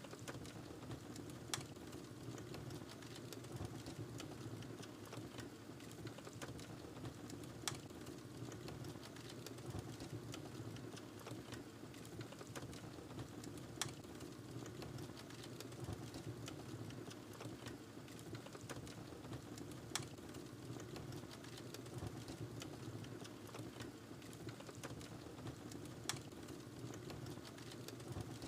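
Wood fire burning in a fireplace, crackling steadily with a soft low rush under many small clicks, and a sharper, louder pop about every six seconds.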